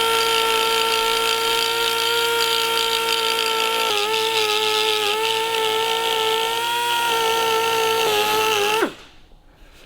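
Small electric grinder running steadily with a high, even whine, dropping in pitch a few times as it bites into the metal. It is grinding out a stress crack in a motorcycle fork brace, which turns out to be a brazed joint. It winds down near the end.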